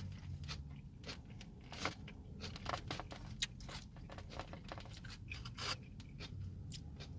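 A person chewing crunchy coleslaw close to the microphone: irregular crunches and wet clicks, a few of them louder.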